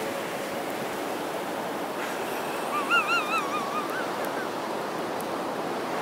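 Ocean surf washing onto the shore, a steady rush of waves. About three seconds in, a short warbling call rises and falls quickly in pitch for about a second and a half.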